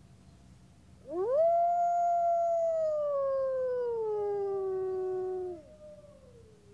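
Wolf howling: one long howl that rises quickly about a second in, holds, then slowly falls in pitch before stopping about four and a half seconds later. A second, fainter howl joins near its end and trails off, still falling.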